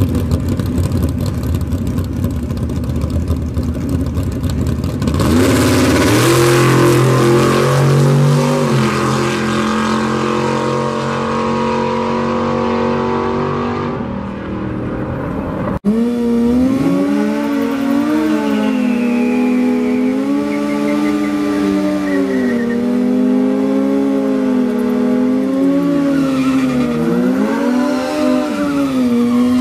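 A pickup truck's engine on a drag-strip pass, launching about five seconds in with revs climbing and then stepping between gears. After a cut, a drag-racing sportbike's engine revs up and down repeatedly at the starting line.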